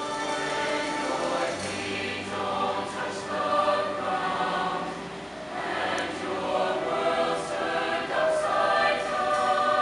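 Mixed show choir singing in harmony, holding long chords.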